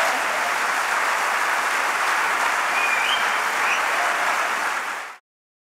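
Large audience applauding steadily, a standing ovation, which cuts off abruptly about five seconds in.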